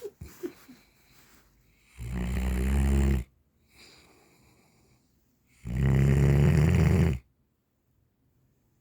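A Central Asian Shepherd Dog (alabai) snoring in its sleep: two long snores a few seconds apart, each about a second and a half.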